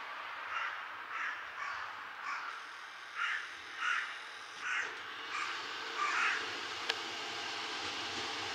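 A crow cawing in a run of about nine short caws, over the faint, slowly swelling sound of an approaching diesel railcar. A single sharp click comes near the end.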